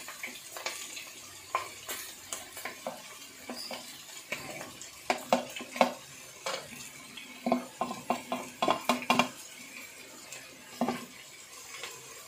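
A wooden spatula scrapes and knocks against a ceramic plate and the pan's rim as chopped onions are pushed into hot coconut oil, which sizzles steadily underneath. The knocks come in quick clusters about halfway through and again a little later.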